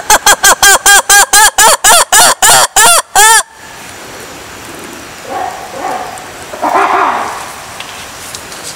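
A lemur giving a rapid run of about fifteen loud calls, about four a second, each rising and falling in pitch, which stops abruptly after about three and a half seconds. A few softer calls follow a couple of seconds later.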